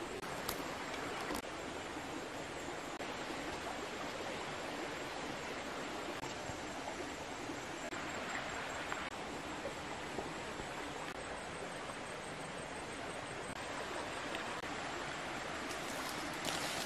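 Steady rushing hiss of outdoor ambience, with a few light clicks and rustles near the end.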